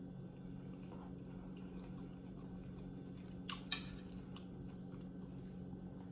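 Faint close-up chewing and wet mouth clicks of someone eating tender braised oxtail meat, with a sharp double click about three and a half seconds in. A steady low hum runs underneath.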